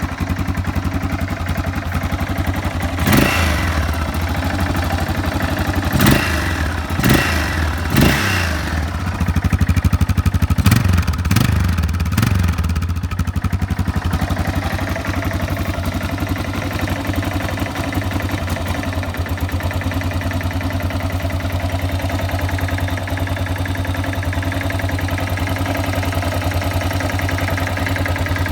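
Yamaha XT600 single-cylinder four-stroke engine idling, blipped several times about three, six, seven and eight seconds in, then revved higher for a few seconds around ten to thirteen seconds in before settling back to a steady idle.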